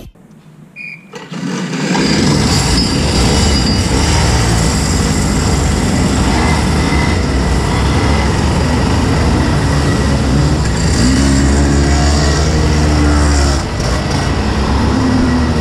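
Rotax Max 125cc single-cylinder two-stroke kart engines idling while the karts stand in line, a steady low rumble that comes in about two seconds in and dips briefly near the end.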